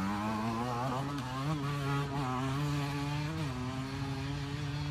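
Beta 125 RR two-stroke dirt bike engine riding off at a steady high pitch, with a few small throttle blips.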